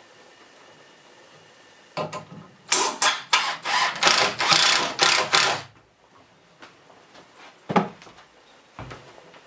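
Cordless drill driving screws into a wooden post in a string of short bursts, starting about two seconds in and stopping just before six seconds. A couple of short knocks follow near the end.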